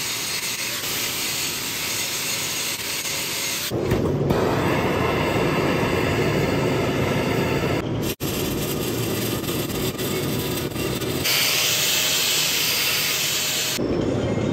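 Metabo flat-head angle grinder grinding into a crack in a steel trailer axle, beveling it out before welding, with a steady hiss. About four seconds in the sound turns heavier and lower. It breaks off sharply about halfway through, and near the end there is another hissier stretch.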